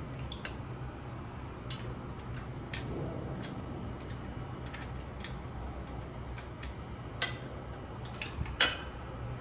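Scattered sharp metallic clicks and taps of hand tools on metal as the Allen bolt holding the starter is worked loose, with a steady low hum underneath; one click near the end is the loudest.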